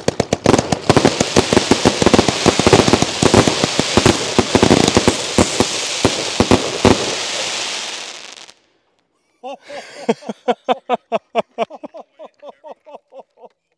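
Raccoon Pro Line firework cake (blue tail to spider and red strobe) firing: a dense run of launches and bursts over a steady hiss, stopping suddenly after about eight seconds. After a second's gap comes a series of evenly spaced pops, about three a second.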